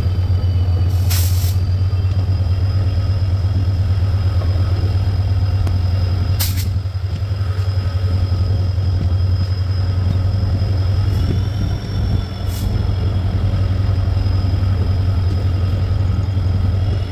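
WDP4 (EMD GT46PAC) diesel-electric locomotive with its EMD 710 two-stroke V16 engine, heard from the first coach behind it, running with a loud, steady low hum and a thin high whine over it that rises slightly about two-thirds of the way in. Three brief sharp noises cut through it.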